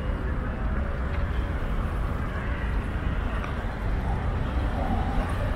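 Steady low rumble of wind across the microphone of a moving bicycle, mixed with outdoor road noise.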